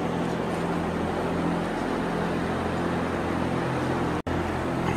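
Steady mechanical hum with an even rushing noise and a low drone, cutting out for an instant about four seconds in.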